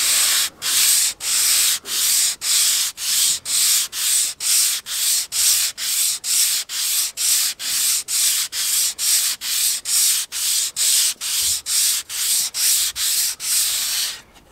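Sandpaper (220 grit on a thin plywood block) rubbed back and forth by hand over a boat hull, a steady rasping hiss in even strokes about two a second. The hull is being block-sanded over pencil lines so that the high spots sand off and the low spots show up for filling.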